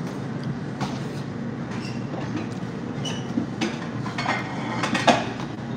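A steady low rumble of restaurant room noise, with scattered small clicks and clinks at the table that bunch up near the end; the sharpest clack comes about five seconds in.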